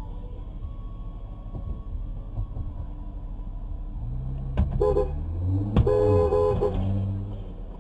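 Car horn honking twice, a short blast and then a longer one, each starting with a sharp bang, over steady low traffic noise.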